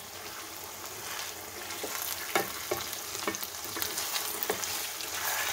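Raw chicken pieces sizzling in hot oil with fried onions in a nonstick kadai over high heat, stirred with a wooden spatula that knocks against the pan several times.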